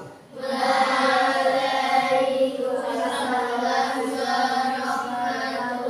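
A class of children answering the Islamic greeting in unison, drawing out 'Waalaikumsalam warahmatullahi wabarakatuh' in a sing-song chorus that starts about half a second in.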